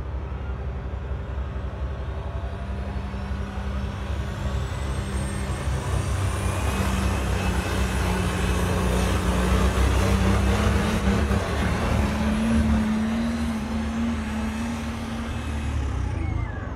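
Diesel pickup truck engine running hard at full throttle while pulling the weight-transfer sled down the track, with a high whistle rising over the first several seconds. The engine grows louder toward the middle and eases off near the end.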